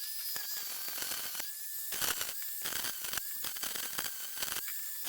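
Angle grinder with a flap disc grinding rust off the steel shaft of a washing machine's transmission: a steady grinding hiss with a whine that rises and drops away about five times.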